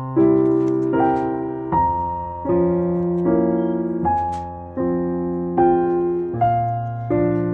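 Background piano music: gentle chords struck about once a second, each fading before the next.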